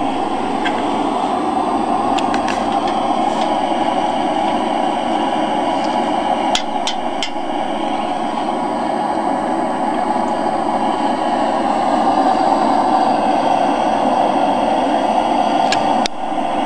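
MAP gas torch burning steadily into a small mini forge while the iron reheats: an even rushing noise. A few sharp metallic taps sound over it, three in quick succession about six to seven seconds in.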